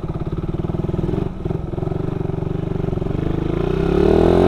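Suzuki Satria FU 150 single-cylinder four-stroke motorcycle being ridden through a 'cacing' type-C header pipe on the stock muffler: a steady pulsing exhaust note, a brief dip in the engine sound about a second in, then revving up, rising in pitch and getting louder toward the end. The rider calls the sound a bit loud and tinny ('cempreng').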